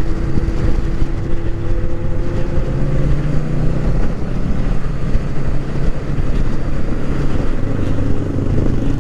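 Honda Rebel 500's parallel-twin engine running steadily while being ridden, mixed with dense rumbling wind noise on the mic. A steady engine tone fades out about three seconds in.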